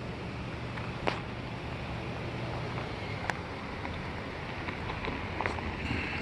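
Steady outdoor rushing noise with a low hum underneath, broken by a few short sharp clicks: one about a second in, one a little past three seconds, and several more near the end.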